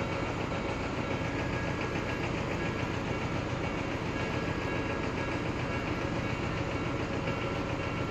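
Odakyu Line train noise at a level crossing: a steady rumble with faint high tones riding on it and no change in level.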